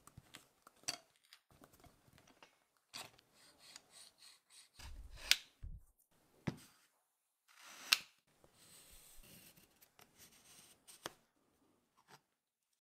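Faint handling noises of small metal and wooden parts on a cloth-covered bench: scattered light clicks, taps and rubbing, with two sharper clicks a little after five seconds and near eight seconds.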